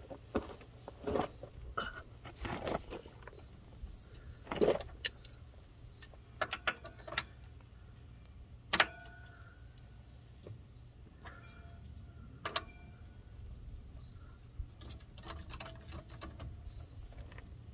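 Socket wrench working the mounting bolts of a track loader's front idler, cracking them loose: scattered metal clicks and clinks, with a few sharper knocks about 5, 9 and 12 seconds in.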